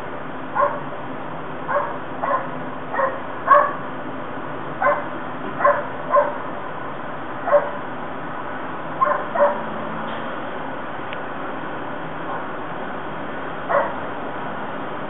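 Dogs barking, heard through a closed double-pane window: about a dozen short barks at uneven intervals, sometimes two in quick succession, over a steady background hum.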